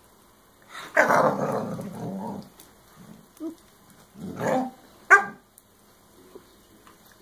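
Black Lab puppy barking and growling in frustration at a small dog that will not give up its chew. There is a long growling bark about a second in, then a shorter bark and a sharp, higher yelp near the end.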